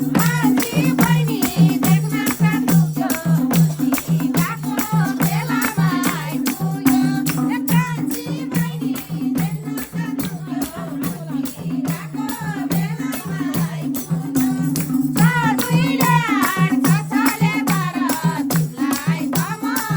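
Nepali folk dohori music: a fast, steady drum beat alternating between two low pitches, with a rattling percussion and a wavering melody line over it.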